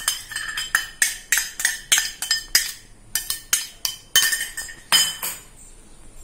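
Small steel bowl knocked repeatedly against a stainless-steel mixer-grinder jar, making quick ringing metal clinks, several a second, as soaked dal and rice are shaken out into the jar; the clinks stop about five seconds in.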